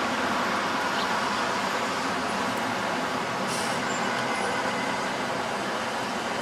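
Steady city traffic noise, with a short hiss about three and a half seconds in.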